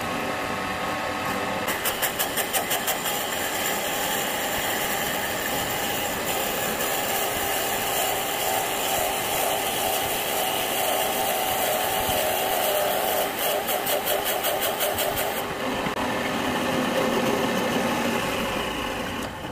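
Homemade wood lathe running while a drill bit in a tailstock drill chuck bores into the centre of a spinning wooden bowl blank. The hiss of cutting starts a couple of seconds in, pulses several times a second at the start and again later, and eases off near the end as the motor runs on.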